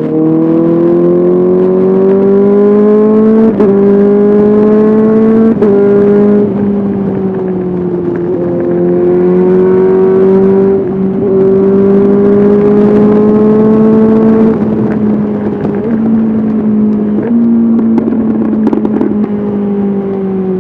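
Honda CBR 650R inline-four engine through an SC-Project SC1R exhaust, under way. The pitch climbs through two upshifts in the first six seconds. It then holds a fairly steady cruise with small throttle changes and shifts, and eases off in pitch near the end.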